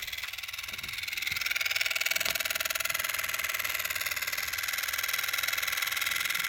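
Roco BR 290 (V90) model diesel locomotive running at low speed from a cold start: its motor and drive give a steady high-pitched whine and buzz that grows louder about a second in. This is the unwanted running noise the owner is trying to diagnose; the locomotive otherwise runs well. A brief click sounds right at the start.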